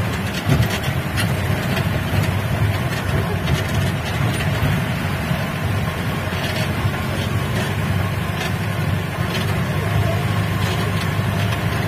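Jeep engine running steadily as the vehicle drives along a rough lane, heard from inside the cab, with a few faint knocks and rattles from the body.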